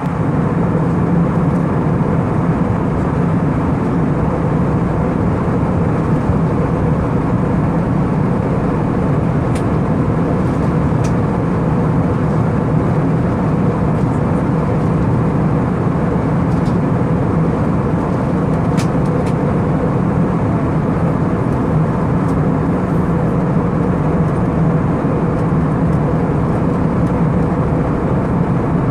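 Steady in-flight cabin noise of an Airbus A319 airliner: the even rush of engines and airflow with a constant low hum, unchanging throughout, with a few faint small clicks.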